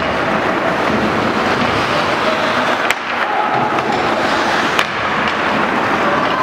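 Ice hockey in play in an indoor rink: skates scraping the ice over a steady crowd din, with two sharp clicks about three and five seconds in.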